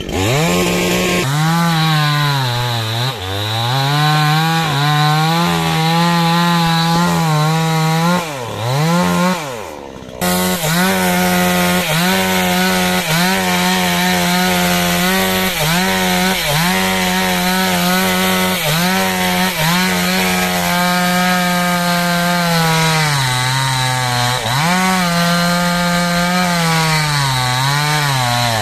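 Petrol chainsaw running at high revs and cutting into a standing tree trunk, its engine pitch sagging again and again as the chain bogs in the wood and recovering as it clears. About eight seconds in the sound falls away briefly, then the saw comes back about two seconds later and keeps cutting.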